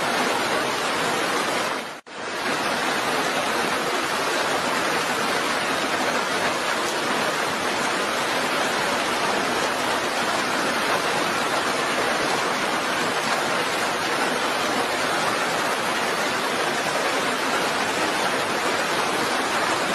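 Steady heavy rain, an even hiss at a constant level, cutting out for a split second about two seconds in.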